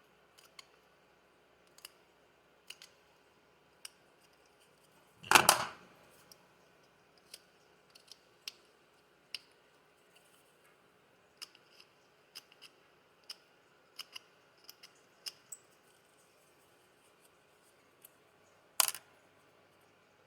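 Small sharp clicks and snips, irregularly spaced, of a hand tool trimming burrs and moulding flashing off plastic RC buggy suspension arms. Two louder clattering knocks, one about five seconds in and one near the end.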